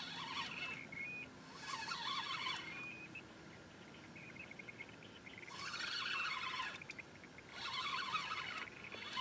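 Fishing reel working while a catfish is fought on a bent rod: several short spurts of rapid clicking and buzzing, with fainter whirring between them.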